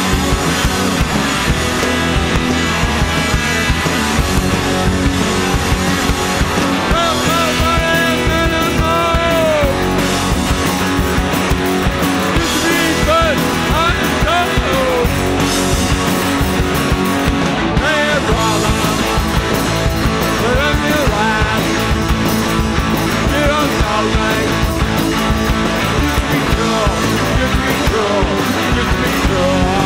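Rock band playing live, loud and steady: electric guitars, bass and drums with a singer.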